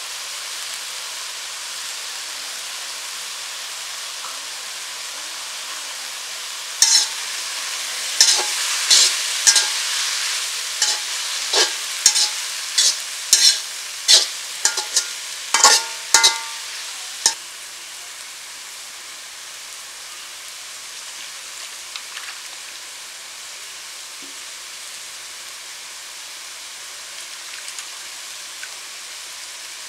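Sour leaves frying in mustard oil in a large aluminium wok, with a steady sizzle. For several seconds around the middle, a metal spatula stirs with about a dozen sharp scrapes and clanks against the pan. After that the sizzle carries on a little quieter.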